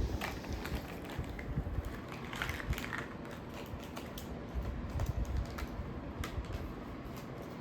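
Irregular light clicks and clacks of plastic toy pieces being handled and knocked together.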